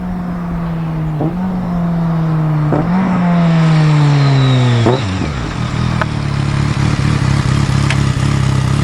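2006 BMW K1200GT's inline-four engine through a Delkevic aftermarket exhaust, slowing down with its pitch falling and jumping back up at three downshifts. It then runs steadily at low revs.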